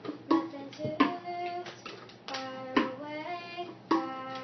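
A young girl singing while beating out a cup-game rhythm, with sharp cup taps and hand claps falling between her sung notes.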